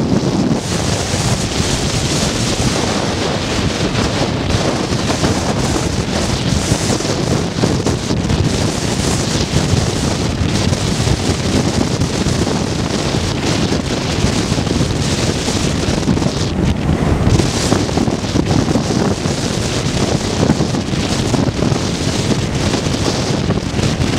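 Strong wind buffeting the microphone in a steady low rumble over the continuous wash of heavy storm surf breaking on the beach.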